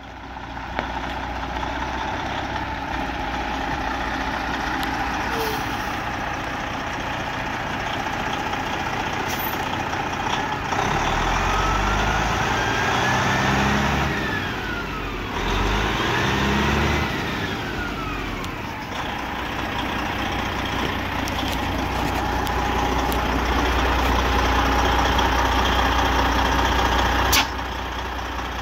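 The diesel engine of a 2015 Freightliner Coronado tri-axle truck tractor idling steadily. It is revved twice in the middle, its pitch rising and then falling each time. A single sharp click comes near the end.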